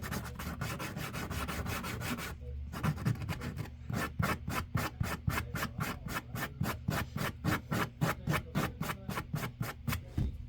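Sandpaper rubbing on a small carved wooden fishing lure: quick continuous scrubbing at first, then after a brief pause steady back-and-forth strokes, about three or four a second.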